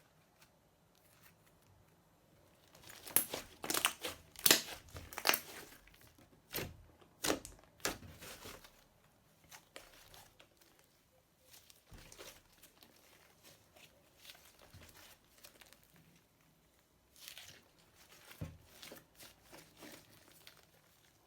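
Slime being worked by hand, crackling and popping. A loud run of crackles comes a few seconds in, followed by softer scattered ones and a second brief run near the end.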